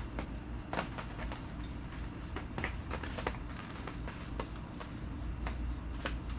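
Scattered, irregular clicks and clinks of hand tools working bolts on an engine, over a steady high trill of crickets.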